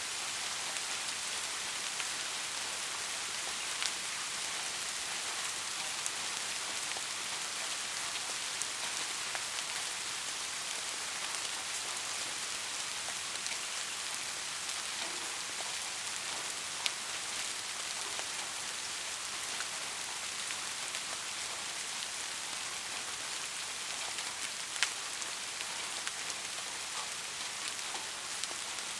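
Heavy rain falling steadily: an even hiss with scattered sharper drop taps, three of them louder than the rest. No thunder.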